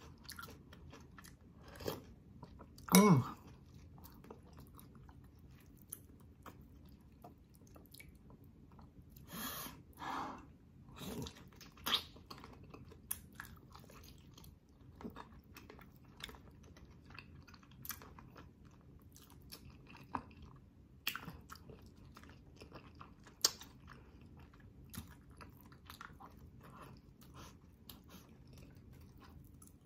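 Close-up mouth sounds of a person eating boiled pork hock by hand: chewing, biting and wet smacks, with scattered clicks. A short, louder mouth noise comes about three seconds in, and a few louder smacking bursts come around ten seconds in.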